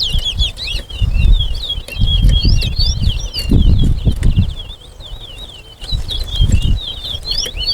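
Towa-towa (chestnut-bellied seed finch) singing a long, fast warbling song of rapid chirps that runs without a break. Irregular bursts of low rumble run under it.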